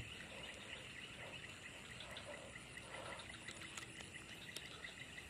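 Faint outdoor ambience of chirping insects: a steady, rapid string of high chirps, several a second, over low background noise.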